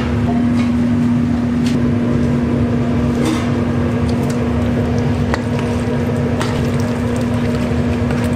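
Steady mechanical hum with one constant low tone, with a few light clicks and knocks.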